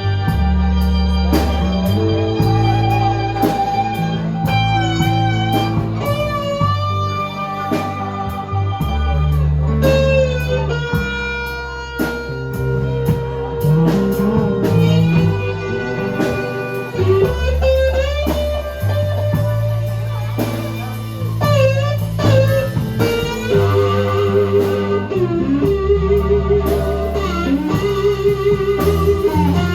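Live blues band playing: an electric lead guitar with wavering, bent notes over a bass line.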